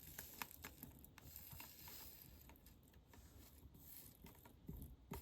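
Faint, scattered light clicks of small resin diamond painting drills shifting and rattling in a plastic drill tray.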